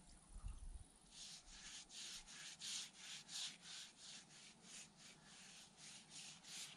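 Faint rhythmic back-and-forth rubbing strokes against a log wall, about fifteen of them at close to three a second, starting about a second in.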